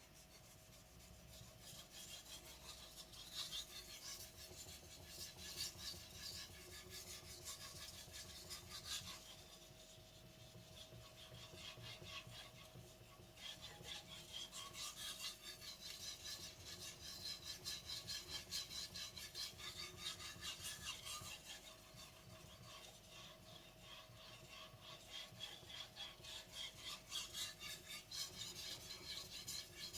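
Blue-steel carbon gyuto blade being stroked back and forth on a wet Japanese whetstone: a quick, rhythmic scraping rasp in long runs of strokes, broken by a few brief pauses.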